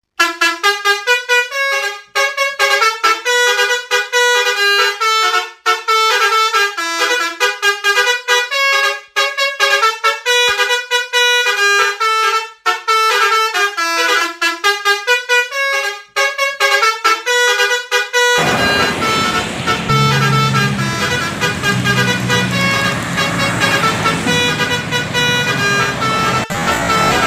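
Indonesian 'telolet' multi-tone bus horn playing a quick melody of short tuned notes, stopping and starting. About eighteen seconds in, it gives way to a second, rougher horn recording with a low hum underneath.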